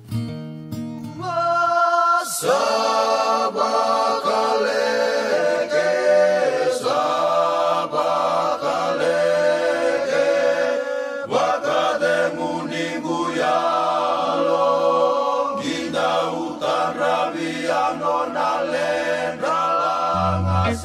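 Background music with sustained, chant-like singing that swells in about two seconds in.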